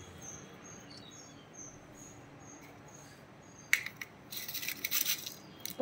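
Faint small-bird chirping: short high chirps repeating. About four seconds in, a click and then a brief, sharp, high-pitched rustle, with one more click near the end.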